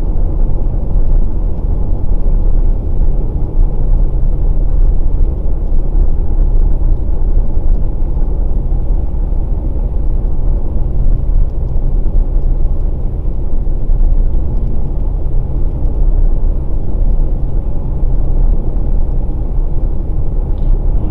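Steady low rumble of tyre, road and engine noise inside the cabin of a 2020 Volkswagen Passat Variant 1.6 TDI cruising on a highway.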